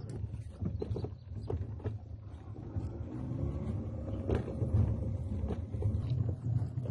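Car engine and road noise heard from inside the cabin while driving over a rough dirt road, a steady low rumble with frequent knocks and rattles from the bumps. The engine note rises a few seconds in.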